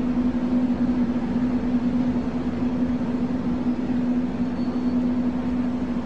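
A steady drone: one low hum over an even rushing noise, unchanging throughout.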